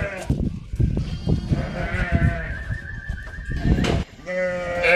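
Sheep bleating during dosing: a thin, wavering bleat partway through, then a loud bleat near the end, over a run of knocks and clatter from the handling.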